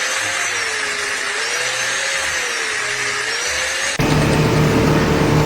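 Machine noise: a steady hiss with a whine that slowly rises and falls in pitch. About four seconds in it cuts abruptly to a louder, steady machine hum.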